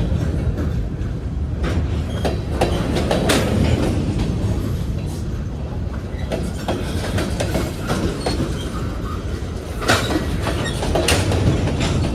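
Freight train cars rolling past at close range: a steady rumble of steel wheels on rail with repeated clicks and knocks at the rail joints, and brief wheel squeal. A louder clank comes about ten seconds in.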